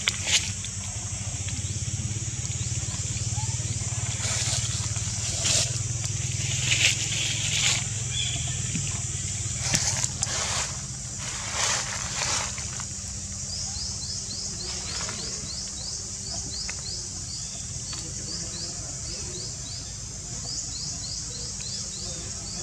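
Tropical forest ambience: a steady high insect drone, with several brief noisy bursts in the first half and a fast run of repeated short chirps over the second half, over a low steady hum.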